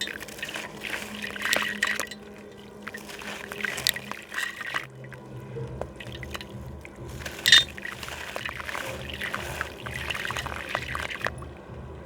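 Gritty slab crumbling and dissolving in water, with fizzing, crackling and trickling in three spells and one sharp snap about halfway through.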